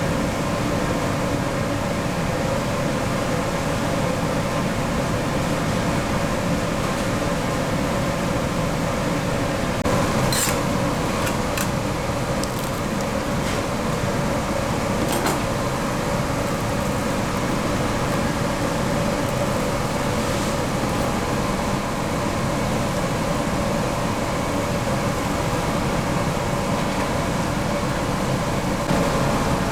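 Steady machinery drone with a constant hum, and a few short knocks between about ten and fifteen seconds in.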